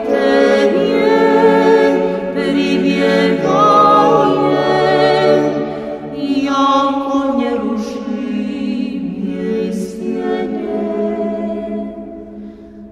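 A cappella Orthodox choir singing a slow hymn to the Mother of God in Church Slavonic, in held chords. The phrase dies away near the end.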